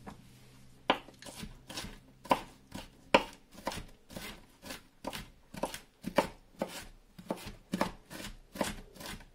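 Chef's knife dicing onion on a wooden cutting board: steady chopping knocks, about two cuts a second, starting about a second in.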